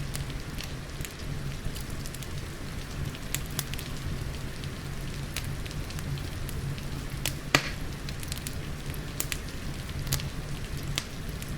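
Wood fire crackling, with scattered sharp pops and one louder snap about seven and a half seconds in, over a steady low rumble and the hiss of rain.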